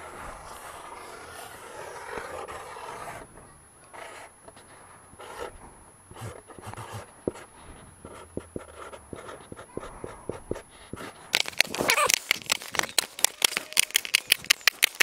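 Marker pen scratching over cardboard as an outline is traced, with scattered light taps and handling of the card. Near the end comes a fast, even run of sharp clicks, about seven a second, the loudest sound here.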